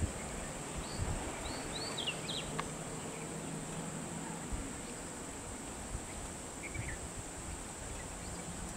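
Steady high-pitched drone of insects, with a few short bird chirps between about half a second and two and a half seconds in and again near the end, over a low background rumble.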